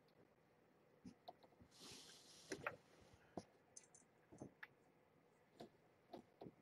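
Faint handling sounds as towels and a cardboard nest box are adjusted: scattered light clicks and soft rustles, with one brief soft rush of noise about two seconds in.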